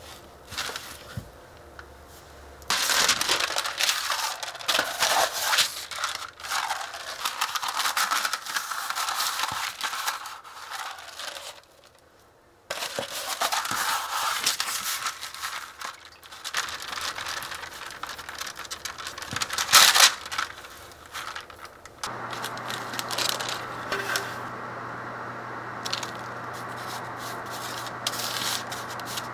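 Hands kneading and shaping white-bread dough on a floured countertop and on a sheet of baking paper: bouts of scraping and rustling, with the paper crinkling, broken by a short pause a little before halfway. A steady low hum comes in about two-thirds of the way through.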